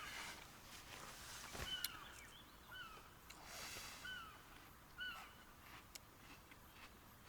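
A bird repeats a short, down-slurred call about once a second, with a couple of sharp clicks about a second and a half in.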